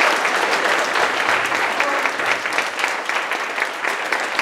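Audience applauding: many hands clapping together, easing off slightly.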